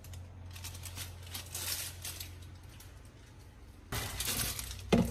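Faint handling noises over a steady low hum; about four seconds in, a clear plastic jar is set down and handled on a wooden chopping block, ending in a sharp knock.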